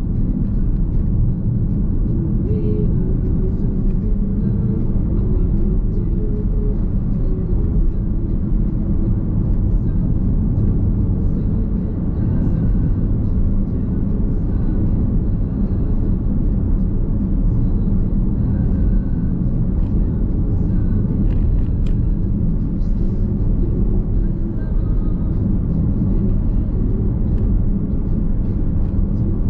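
Steady road and tyre rumble of a Nissan X-Trail Hybrid cruising, heard inside the cabin.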